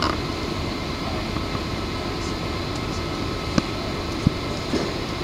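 Steady mechanical background rumble and hiss, with a faint steady whine, broken by two sharp clicks a little past the middle.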